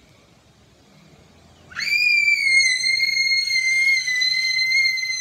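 A young girl singing one very high, steady note, shrill and squeal-like, aimed at a glass to try to shatter it with her voice. It starts about two seconds in and is still held at the end.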